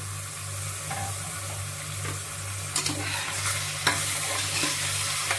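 Raw mutton pieces sizzling in hot oil with onions in a pressure cooker, while a slotted steel spoon stirs and scrapes them against the pot. There are a few sharper scrapes about three and four seconds in.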